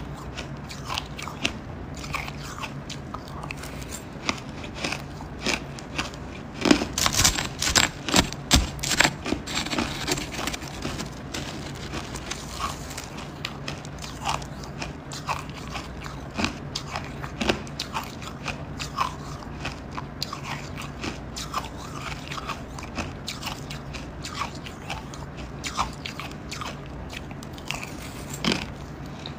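Crumbly 'buckwheat' ice being bitten and chewed close to the microphone: crisp crunching and crackling, densest and loudest about seven to ten seconds in, with scattered crunches the rest of the time.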